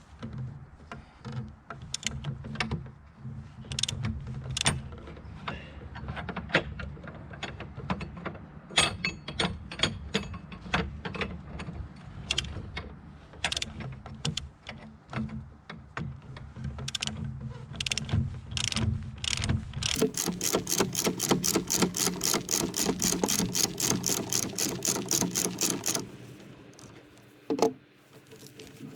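Ratchet wrench working a 22 mm nut: irregular clicks and short strokes at first, then a fast, even run of ratchet clicks for about six seconds as the nut spins, stopping before a single knock near the end.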